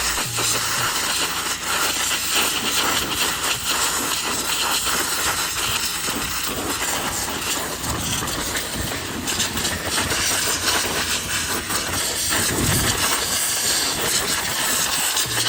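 Pressure washer spraying a high-pressure water jet: a steady, loud hiss.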